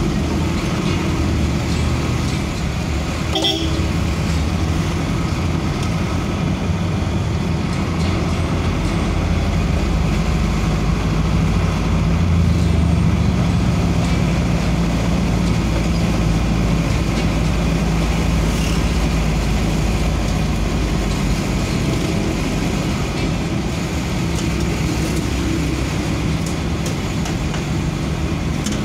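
Steady vehicle engine and road noise from a vehicle driving along a street, with a short toot about three and a half seconds in.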